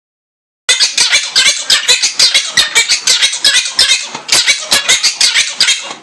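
Quaker parrot screeching in a fast, loud run of short, harsh squawks, about five a second, starting suddenly less than a second in: excited, agitated calling.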